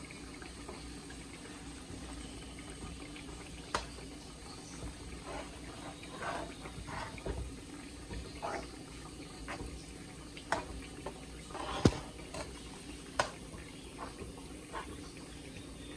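Metal spoon stirring rotini pasta through a thick cheese sauce in a pot: wet squelching, with scattered clinks of the spoon against the pot, the sharpest about twelve seconds in.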